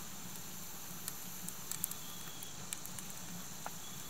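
Wood fire burning in a small camp wood stove with its door open: a steady soft hiss with scattered crackles and pops.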